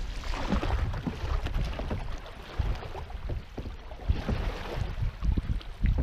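Canoe moving along a swift river: water rushing and splashing against the hull, with wind buffeting the microphone in irregular low rumbles.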